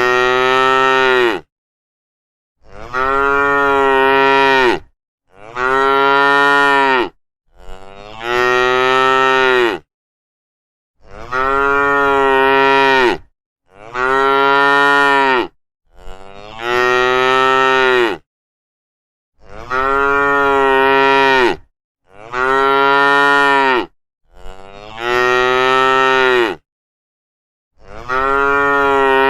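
Cattle mooing over and over, about eleven long, steady-pitched moos of one to two and a half seconds each, one after another with short silent pauses between them.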